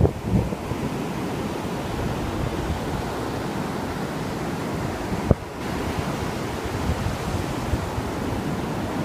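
Atlantic Ocean surf washing in steadily, with wind buffeting the microphone; a single sharp click about five seconds in.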